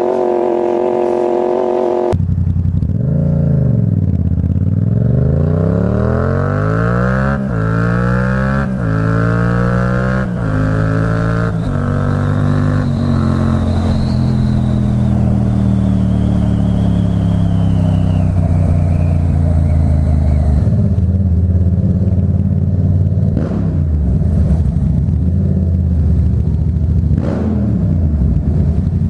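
Yamaha MT-07's 700cc parallel-twin engine through a Black Widow aftermarket exhaust, heard from inside the rider's helmet. After a steady note that changes abruptly about two seconds in, it accelerates up through several gears, its pitch climbing and dropping back at each shift. It then holds a steady cruise, with a few brief rises and falls in revs near the end.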